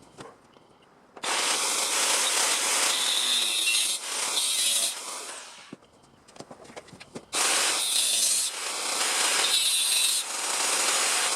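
Power tool working sheet steel in two long runs, the first about four seconds, then a short pause with a few clicks, then a second run to the end.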